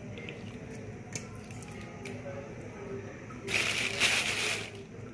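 Thin plastic bag crinkling and rustling as fish heads are handled inside it, with a louder burst of crinkling about three and a half seconds in that lasts about a second.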